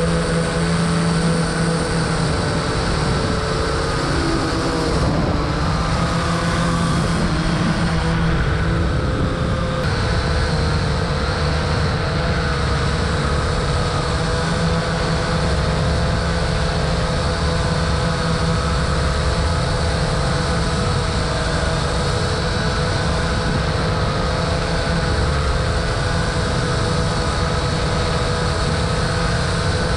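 Vivitar 360 Sky View drone's electric motors and propellers whirring in flight, heard from the GoPro on board. The pitch wavers a few seconds in, then holds steady. The motors are working hard under the weight of the GoPro, which is a bit much for the drone.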